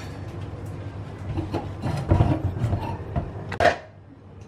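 Steady low rumble of the stove flame under a clay pot of kulambu on the boil, with a few light clicks and a sharper knock about three and a half seconds in.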